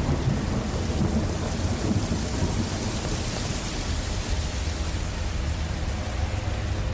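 Steady rain falling with a low rumble of thunder underneath, strongest in the first few seconds.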